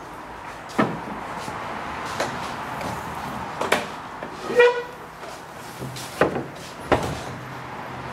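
Pine board and rip fence being set up on a circular dimension saw's metal table: a run of sharp knocks as the board is laid down and moved against the fence, with a short squeak about halfway through. A steady workshop hum runs underneath.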